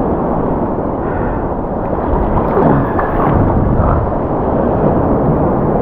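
Rough surf waves washing and sloshing around a wading angler, a steady loud rumbling wash of water.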